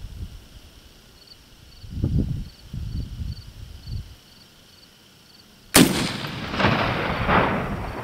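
A single .45-70 rifle shot from a Marlin 1895CB lever-action with a 26-inch octagonal barrel, about three-quarters of the way in, after a few low thuds. The crack is followed by a long rolling echo off the canyon walls that rumbles "like a V-8".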